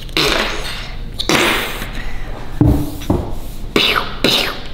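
A child making mouth sound effects in pretend play: drawn-out hissing blasts and short sharp bursts, with a brief voiced growl about two and a half seconds in.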